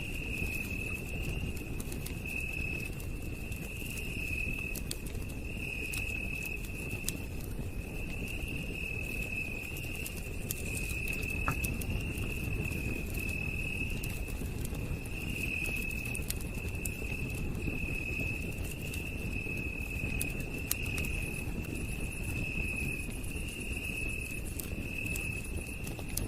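Campfire crackling with scattered sharp pops over a low steady rumble, while a night insect trills continuously on one high pitch in pulses a second or so long.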